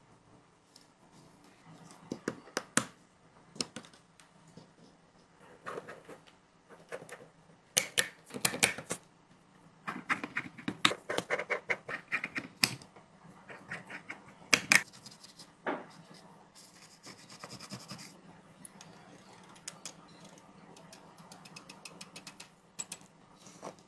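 Irregular sharp clicks, taps and short scrapes of small hand tools working on a smartphone under repair, with a quick run of fine ticks about two-thirds of the way through, over a faint steady hum.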